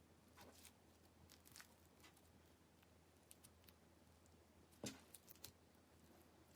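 Clear slime being handled, making faint sticky clicks and small pops at irregular intervals, with one louder pop a little under five seconds in.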